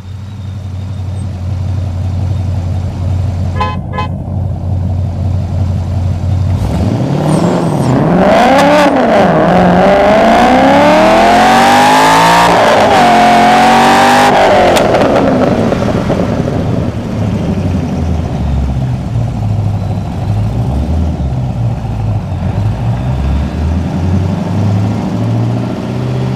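Cammed, modified LS7 7.0-litre V8 of a Corvette Z06 with a full exhaust, heard from inside the cabin: held steady at about 2,000 rpm, then launched at full throttle. The engine note climbs and wavers as the rear tyres spin, rises steadily through first gear, dips at the shift to second, then falls away as the throttle comes off.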